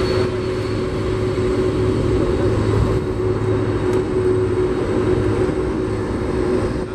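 Aircraft engines running steadily: a loud, even rumble with a steady humming tone.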